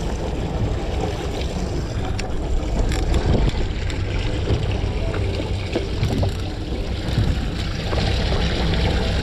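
Wind buffeting the microphone over water washing against a small boat's hull, with a few faint clicks.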